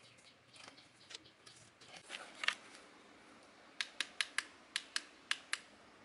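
Light clicks and scrapes of hand tools on small metal engine parts, then a quick run of about seven sharp clicks in the second half.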